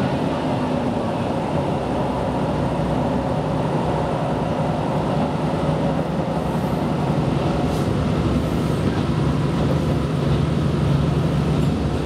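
Cabin sound of a KiHa 125 diesel railcar under way: the diesel engine's steady drone mixed with the running noise of the wheels on the rails. The engine note grows stronger near the end.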